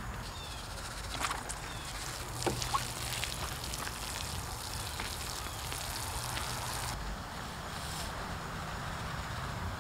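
Water pouring from a plastic watering can onto soil and wood-chip mulch, a steady splashing hiss, with a few light knocks in the first three seconds.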